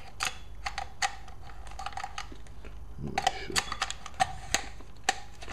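Plastic Meike battery grip being slid into a Canon 550D's battery compartment and handled at its mounting thumbwheel: a run of irregular light clicks and taps, several a second.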